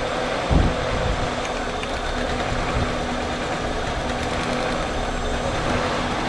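1999 Honda Accord engine idling roughly, misfiring on cylinders 1 and 3 (codes P0301 and P0303). A low thump about half a second in.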